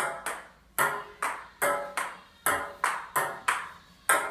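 Table tennis ball clicking back and forth between paddles and a glass-topped table in a quick rally, about two to three hits a second, each with a short ring.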